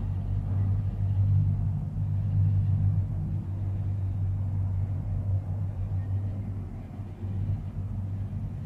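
Steady low rumble of a Maokong Gondola cabin riding along its cable, dipping briefly near the end.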